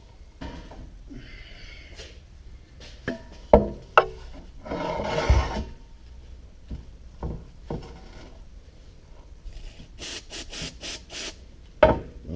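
Hand-cleaning of greasy metal motorcycle parts: rubbing and scraping, with a few sharp metal clinks and a quick run of brisk scrubbing strokes near the end.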